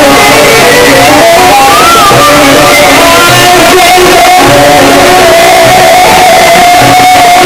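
Live Egyptian traditional ensemble music: two cane flutes carry an ornamented melody over plucked oud and bowed violin. A steady low beat runs underneath, and the music is loud.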